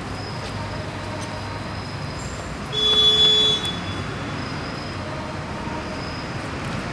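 Steady city traffic noise, with a car horn sounding once for just under a second about three seconds in.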